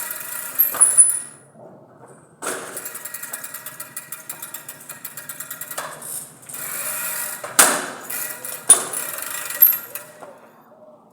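Bicycle rear freewheel fitted with a hair clip against its sprocket, rattling in a fast, even machine-gun clatter as the bike rolls, a mod meant to make it sound like a motorbike. A few sharp knocks break in, the loudest near the end.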